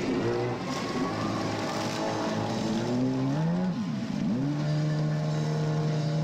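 Jet ski engine running hard through turns, its whine shifting up and down in pitch. About four seconds in it dips sharply and climbs back, as if throttled off and on again, then holds a steady pitch.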